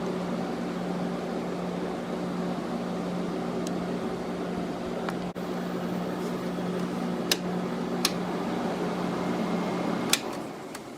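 Window air conditioner running: steady fan noise over a motor hum, with a few sharp clicks. About ten seconds in, a click switches it off and the sound winds down.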